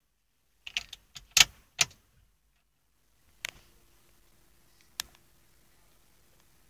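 Car key and keyring jingling and clicking in the ignition lock as the key is turned, a quick cluster of metallic clicks in the first two seconds. About three seconds in a faint steady hum sets in, with two more single clicks.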